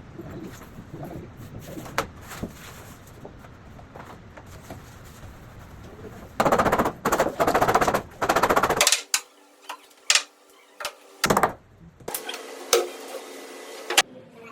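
Short loud bursts of a power tool in woodworking, with sharp knocks between them.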